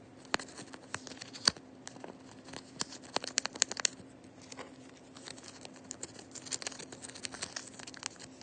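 Handmade paper blind-bag craft being handled close to the microphone: a scatter of sharp taps and paper crinkles, densest about three to four seconds in, over a faint steady hum.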